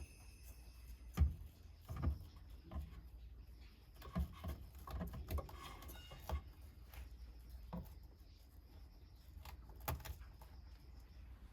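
Scattered light knocks and clatter at uneven intervals, about half a dozen, over a faint steady low hum.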